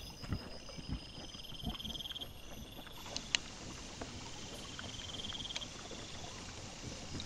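Crickets chirping steadily in a night wood, with scattered soft thuds and clicks from wild boar and piglets moving and rooting on the ground. One sharp click comes about three seconds in.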